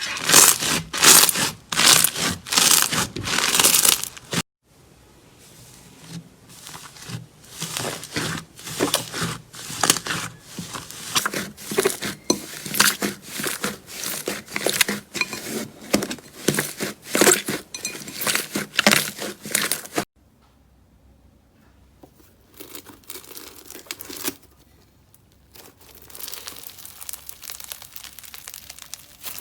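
Slime being squeezed and pulled, giving dense runs of crackling, popping clicks. The sound breaks off abruptly about four seconds in and again around twenty seconds, and the last stretch is quieter.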